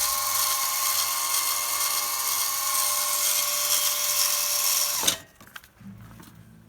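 Variable-speed electric drill running steadily with a high whine, friction-driving the ventilator's grinding wheel and crank. About five seconds in it is switched off and winds down within a fraction of a second, leaving only a faint low hum.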